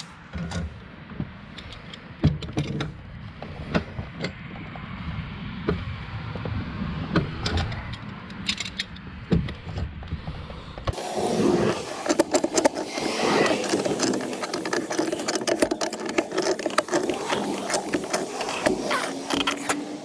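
Pipe wrenches working the threaded steel fittings of a gas meter riser: scattered sharp metal clicks and scrapes over a low rumble. About eleven seconds in, the rumble stops and the clicking and rattling become dense and louder.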